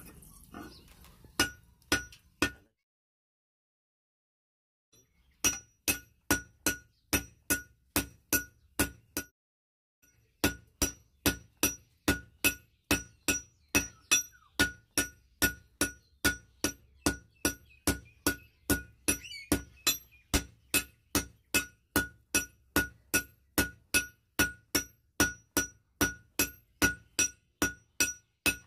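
Hand hammers striking red-hot steel bar on an anvil, each blow ringing with a clear metallic note. A few blows at the start, then a few seconds of silence, then steady hammering at about two blows a second, with a short pause near the middle.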